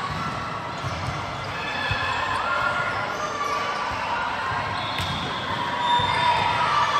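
Volleyball in play: dull thumps of the ball being struck and hitting the floor, several times, over spectators' voices and calls.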